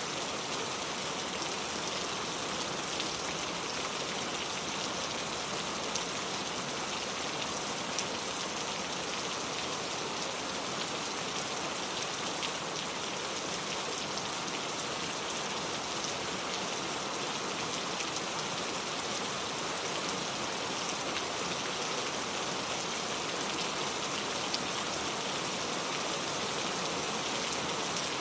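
Steady rain falling on a surface: a constant hiss with many small drop ticks scattered through it.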